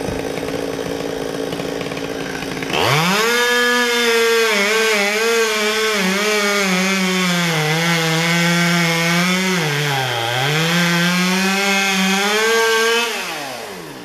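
Chainsaw running quietly, then opened to full throttle about three seconds in and cutting into a poplar limb for about ten seconds. Its pitch sags and wavers as the chain bogs in the wood, dipping deepest about ten seconds in. It is let off and winds down near the end.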